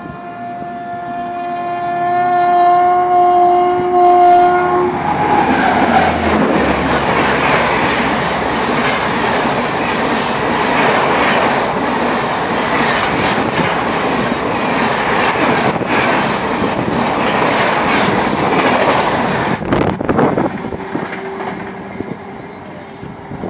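A WAP-7 electric locomotive's horn sounds one long blast that cuts off after about five seconds as the Rajdhani Express arrives at speed, around 130 km/h. Its coaches then rush past with loud wheel clatter and air rush, which drop away near the end once the last coach has gone by.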